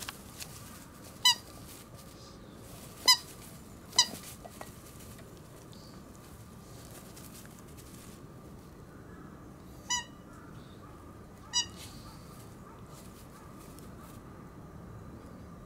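Black Shiba Inu puppy giving short, high-pitched yelps as its mother disciplines it: three in the first four seconds and two more about ten and eleven and a half seconds in.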